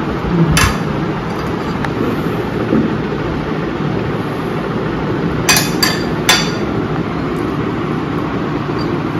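Metal spoon clinking against a glass baking dish and plate: one sharp clink about half a second in, then three quick clinks in a row a little past the middle, over a steady background hiss.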